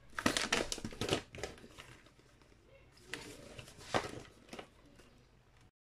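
Crinkly plastic snack bag rustling and crackling as it is handled and wafer rolls are taken out, in a cluster of sharp crackles in the first second and another around three to four seconds in.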